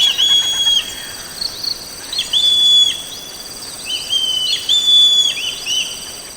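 Legge's hawk-eagle calling: a series of high, drawn-out whistles, each sliding up sharply into a held note that then drops away, given several times in loose groups. Insects drone steadily underneath.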